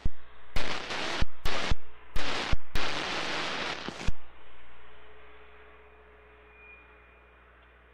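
Bursts of static from an air traffic control radio feed: hiss keyed on and off abruptly several times with clicks for about four seconds, then a fainter hiss that fades away.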